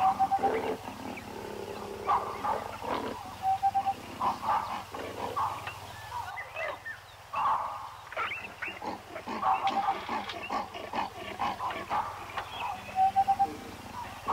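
Wild animal calls: short harsh calls in clusters every few seconds, each group with a brief clear note.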